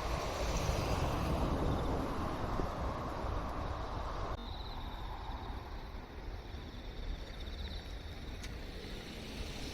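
Rumble of a passing train, cut off abruptly about four seconds in, leaving a quieter outdoor background with insects chirping in quick high pulses.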